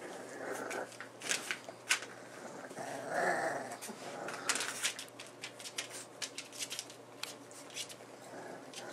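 Young bullmastiff puppies whimpering and squealing as they crawl over one another, with one louder squeal about three seconds in. Scratchy clicks of paws and bodies moving on a blanket run underneath.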